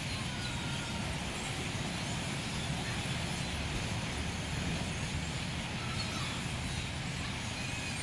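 Steady low outdoor rumble with a few faint, short bird calls scattered through it from a large flock flying overhead.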